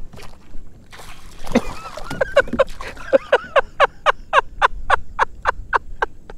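A bird calling a long series of short, evenly spaced notes, about four a second, starting about a second and a half in and slowing slightly toward the end.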